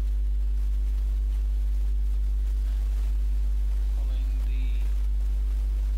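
Steady low electrical mains hum with a stack of evenly spaced overtones, unchanging throughout.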